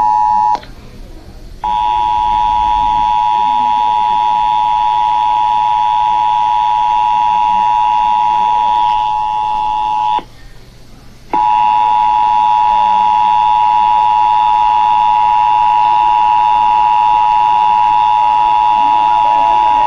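Emergency Alert System attention signal: two steady tones sounding together, loud and unwavering, broken by two short gaps of about a second each, one near the start and one about halfway. It is the tone that announces an EAS alert, here sent for a national test.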